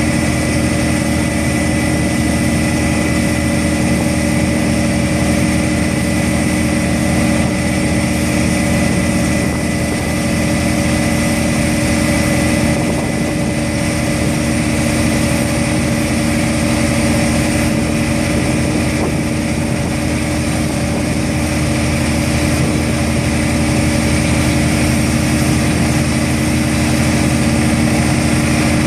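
Bruce SGV-400 vibratory hammer driving a steel sheet pile, a steady, loud mechanical hum together with the diesel engine of its hydraulic power pack running, with a thin high whine over it.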